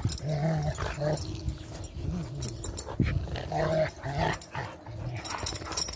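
Rottweilers growling in bouts as they play-fight, with dry leaves crackling under them as they tussle.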